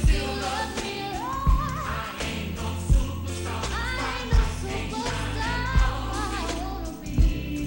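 Gospel music with singing over a steady bass line, with a heavy low drum beat about every second and a half.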